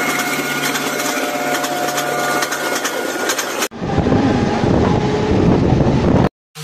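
Mumbai suburban local train heard from its open doorway as it pulls out past the platform: a heavy rumble of wind buffeting the microphone over the train's running noise, cutting in abruptly about three and a half seconds in. Before that comes a steady noisy hum with several held tones and fine ticking. The sound stops suddenly just before the end.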